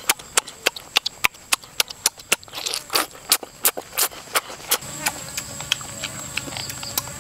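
Close-up mouth sounds of someone eating cooked octopus: sharp lip smacks and chewing clicks about three a second, with a short slurp or two.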